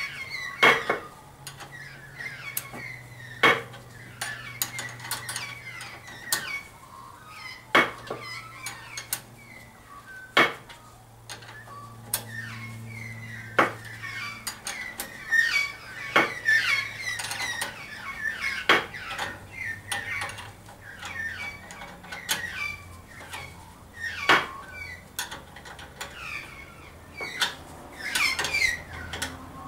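Small metal parts and tools clinking and knocking during hands-on assembly work, in irregular clatters with a sharp knock every few seconds.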